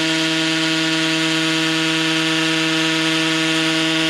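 Power drill running at a steady speed, drilling into the ground.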